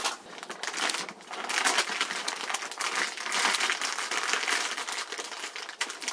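Irregular crinkling and rustling made up of many small crackles, loudest through the middle of the stretch.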